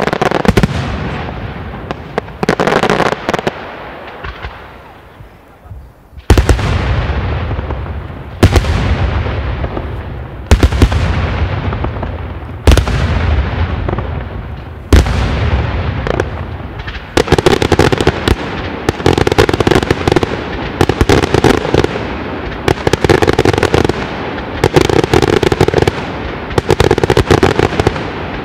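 Daytime fireworks shells bursting: crackling at first that dies away, then a series of loud bangs about two seconds apart, each with a long echoing tail. From about halfway through, a dense run of rapid cracks and bangs.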